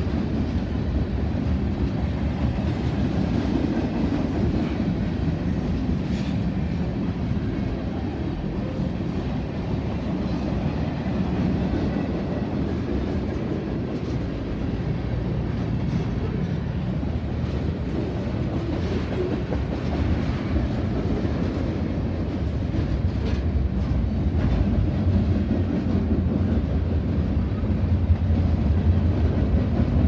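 Freight train cars rolling past close by: steady rumble of steel wheels on the rails, with scattered clicks and clacks over the rail joints, a little louder near the end.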